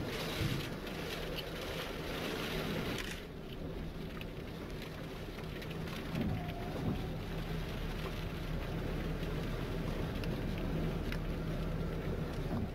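Steady rushing storm noise of wind and rain on the microphone, with a low steady hum beneath it. A brighter hiss fills the first three seconds and stops abruptly.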